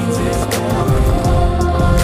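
Pop music with a steady beat: drums, bass and held synth chords, no singing.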